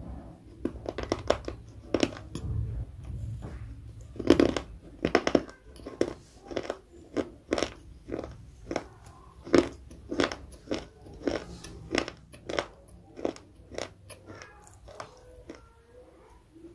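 Close-miked mouth crunching and chewing of crisp raw food: sharp, irregular crunches about one to two a second. They are louder in the first half and grow fainter toward the end.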